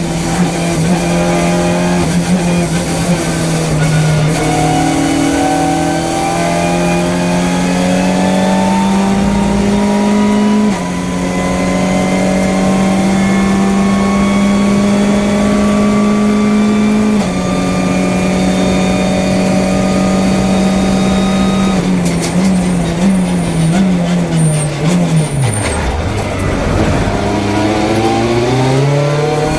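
In-car sound of a Hyundai i30 N TCR race car's turbocharged 2.0-litre four-cylinder, pulling hard and climbing in pitch through the upper gears with a few gear changes. About three-quarters of the way through it brakes hard, with a rapid run of downshifts and throttle blips. Near the end it pulls away again, the pitch rising quickly in a low gear.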